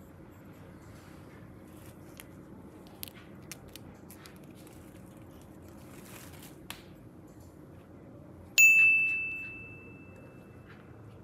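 A single bright ding, like a small bell or chime, struck suddenly about three-quarters of the way in and fading over about a second and a half. Before it come a few faint small clicks over a low hiss.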